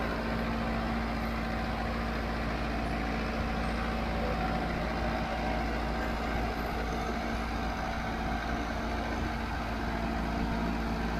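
Kubota MU5501 tractor's four-cylinder diesel engine running steadily under load while pulling a double harrow.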